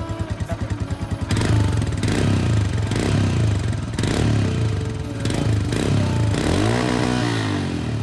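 Royal Enfield Himalayan's 411 cc single-cylinder engine through its stock silencer, idling with even pulses, then revved in short blips about once a second from about a second in, with one longer rev up and back down near the end.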